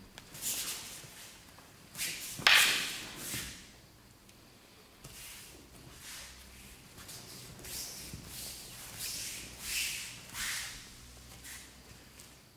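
Wooden practice swords (bokken) meeting with one sharp clack about two and a half seconds in, echoing in a large hall, followed by soft swishes and shuffling of feet and hakama on the mats.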